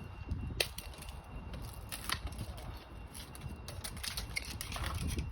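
Dead lemon-tree branches being cut and snapped: a few sharp dry cracks, one about half a second in and two close together around two seconds in.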